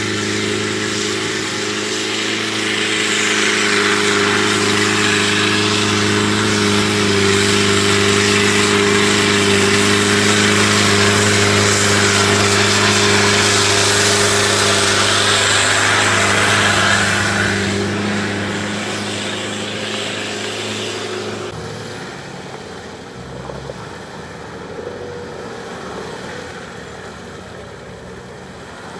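A 4x4's engine held at steady high revs, with a loud rushing noise over it that swells and then fades. About two-thirds of the way through it cuts off abruptly, giving way to a quieter engine at lower revs.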